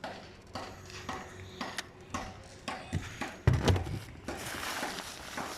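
Irregular sharp knocks and clicks, the loudest about three and a half seconds in, followed by a rough scraping noise.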